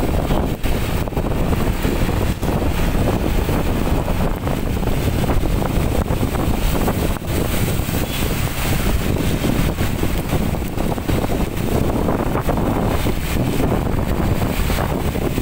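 Strong gusty wind buffeting the microphone in a storm, a loud steady rumble over the hiss of heavy rain.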